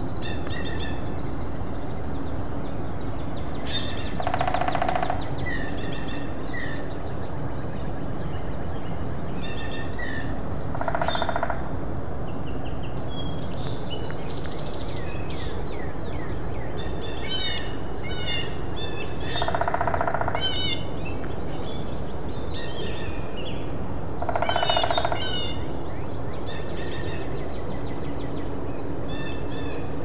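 Hairy woodpecker drumming on dead wood: four rapid rolls of even strikes, each about a second long, spaced several seconds apart. Other songbirds chirp and sing between the rolls.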